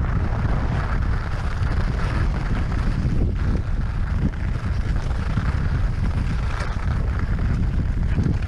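Wind buffeting the microphone of a GoPro Hero 5 Session during a steady ski descent, a continuous rumbling rush, with the hiss of skis running over packed, groomed snow.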